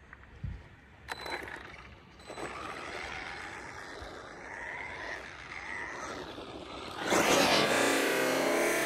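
Brushless electric RC buggy running on loose gravel, its motor whining up and down in pitch as it speeds up and slows, with a sharp knock about a second in. The sound gets much louder near the end.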